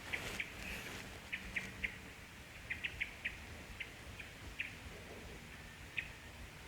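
Small birds chirping: short, sharp chips at irregular intervals, sometimes two or three in quick succession.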